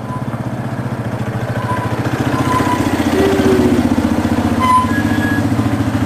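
A small motor vehicle's engine running steadily with a fast even pulse, gradually getting louder.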